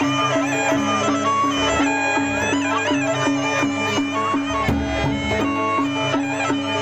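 Sasak gendang beleq ensemble playing a closing piece (tabuh penutup): held tones under a repeated pitched note struck about three times a second.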